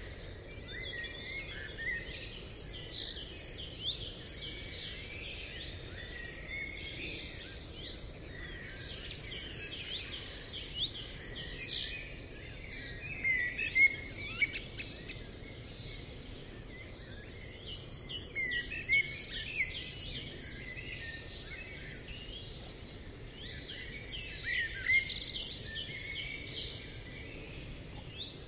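Many songbirds chirping and singing at once, a dense overlapping chorus of short calls and trills over a steady low hiss, with louder clusters of calls in the middle and again later on.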